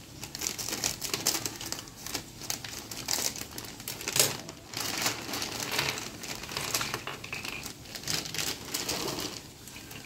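Thin plastic packaging bag crinkling as it is cut open with scissors and shaken out, with small plastic drip-irrigation fittings tumbling onto a hard tabletop. A sharp click about four seconds in is the loudest moment.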